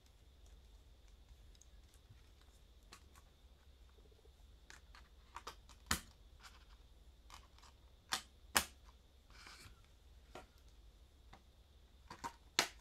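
Scattered clicks and taps from a metal SteelBook Blu-ray case and its disc being handled, with the sharpest click about six seconds in, two more close together around eight seconds, and a quick run of clicks near the end as the case is closed and set down. A brief soft rustle comes between them.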